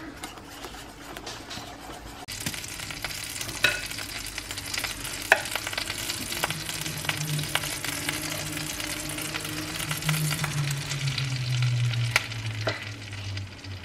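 Banana pancakes frying in butter in a pan: a steady sizzling hiss with scattered crackles that starts about two seconds in. A low steady hum joins about halfway through.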